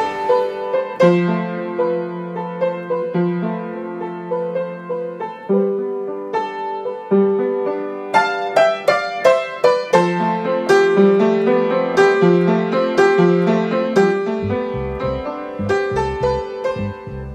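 Instrumental music: a melody of quick, separate notes over a repeating lower accompaniment, with a deep bass line joining near the end.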